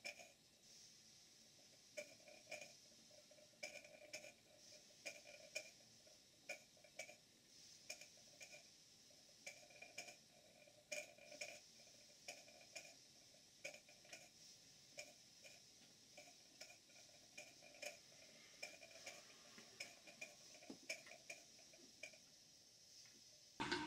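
Small live-steam model beam engine running slowly, its mechanism and exhaust giving a faint, slow clicking over a light steam hiss. Right at the end a sudden louder rush of steam starts as a valve on the steam line is opened.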